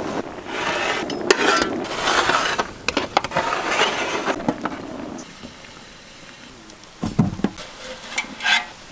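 Metal spoons and a slotted ladle scraping and clinking against an aluminium cooking pot as boiled fish are lifted out. The clinks are busiest in the first few seconds, then quieter, with a few sharper clinks near the end.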